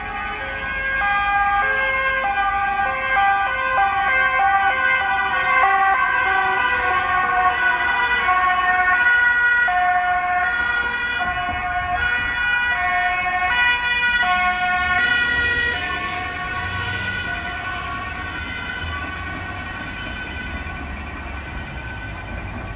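Emergency vehicle siren sounding in alternating pitched notes. It grows louder in the first couple of seconds and fades away after about sixteen seconds, with a low traffic rumble underneath as it passes.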